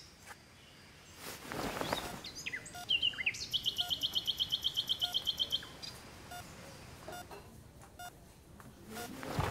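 Birds chirping, with a fast trill lasting about two seconds near the middle. A faint beep repeats roughly once a second, and there is a soft whoosh about a second and a half in.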